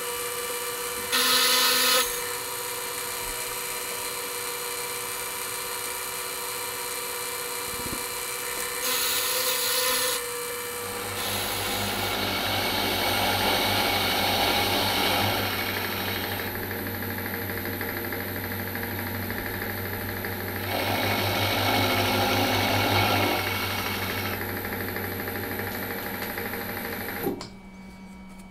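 Machine tool running while its cutter takes a cut in steel, the cutting noise swelling in several stretches over the steady motor tone; the machine is switched off a little before the end.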